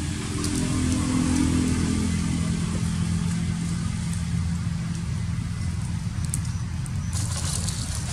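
A low, steady motor-engine drone, with a brief rustle of dry leaves near the end.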